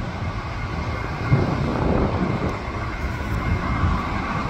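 Jet engines of a twin-engine airliner on final approach, a steady rumble with a faint high whine.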